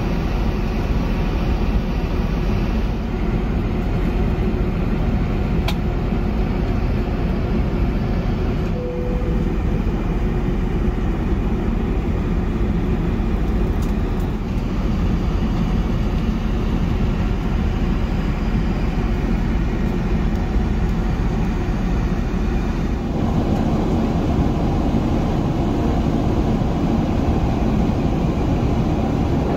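Steady cabin noise of an Airbus A380 airliner in flight: a constant low rush of airflow and engine noise. It grows a little fuller about two-thirds of the way through.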